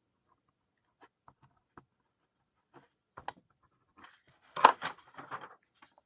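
Scattered light clicks, then a short burst of rustling and clattering about four and a half seconds in, the sound of small objects being handled close to the microphone.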